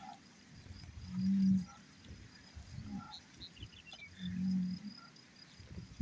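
Cattle lowing: two short, low moos, one about a second in and another about four seconds in.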